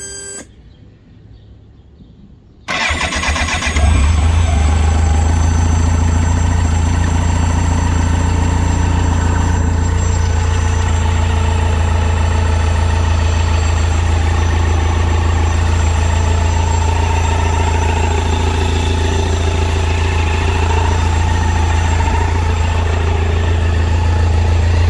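1994 BMW K1100's four-cylinder engine being started after its oil change: the electric starter cranks for about a second, then the engine catches about four seconds in and settles into a steady idle. A short whine is heard at the very start.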